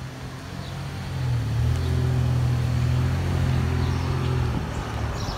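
A vehicle engine running nearby with a steady low drone that swells in about a second in and stops fairly abruptly near the end. A few faint bird chirps come as it stops.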